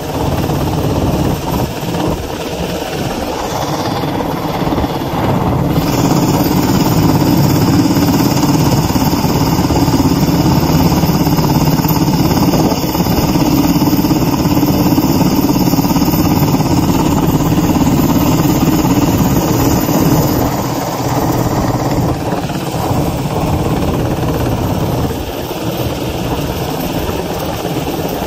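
Helicopter hovering overhead with a load slung on a long line: steady, loud rotor and engine noise.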